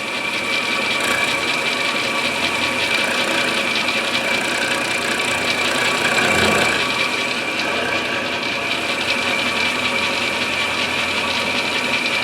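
Milling machine running with a steady high whine as its cutter mills the inletting in an English walnut gunstock, the cut rattling fast and even. It gets slightly louder about six and a half seconds in.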